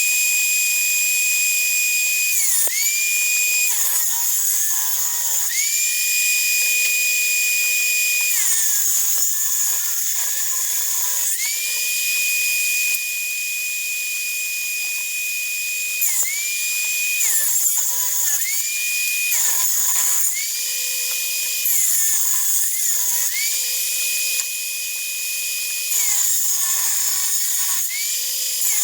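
Electric power saw running at high speed while ripping wood. Its whine sags in pitch each time the blade takes load in a cut, then recovers, about ten times over.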